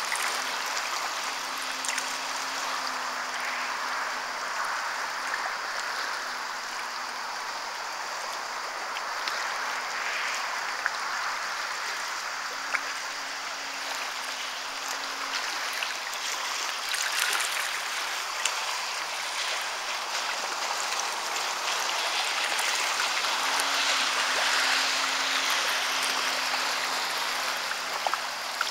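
Small waves lapping and splashing at the shoreline, with the faint drone of a distant Sea-Doo personal watercraft coming and going.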